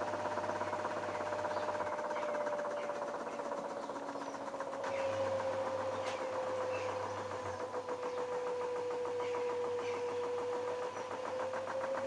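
LG F1222TD direct-drive washing machine spinning its drum at 400 rpm, though it was set to no spin: a steady motor whine whose pitch sags a little through the middle and rises again near the end, over the drum's hum and a few light ticks.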